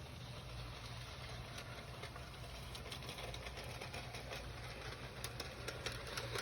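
Garden-railway model train running on its outdoor track, a steady mechanical hum with quick clicks that grow louder and more frequent toward the end as the train comes closer.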